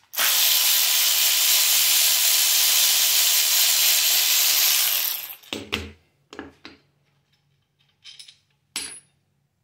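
Cordless ratchet running steadily for about five seconds, spinning out a stock LS rocker arm bolt. Then a few short clicks and knocks as the rocker parts are lifted off by hand.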